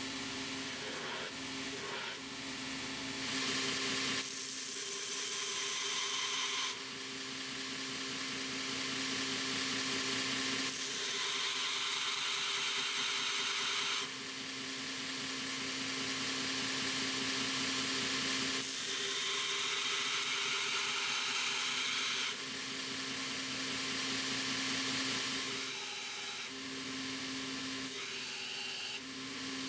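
Belt grinder running with a steady motor hum. A piece of hardened high-speed steel is pressed against the belt in several passes of about three seconds each. Each pass rises into a loud grinding hiss and cuts off suddenly when the steel is lifted from the belt.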